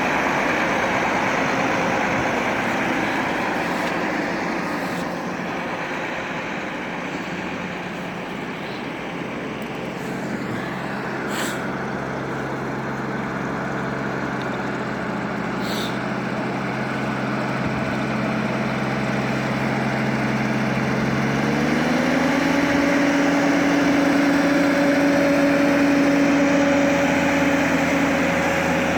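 Diesel locomotive engine running steadily under a broad rumble. About three quarters of the way through, its pitch steps up as it throttles up, then holds at the higher speed.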